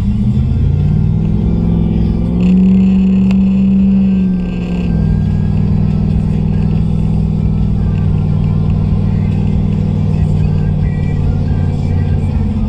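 Pickup truck engine heard from inside the cab, rising in pitch as it accelerates, then dropping in pitch and level about five seconds in and running steadily after.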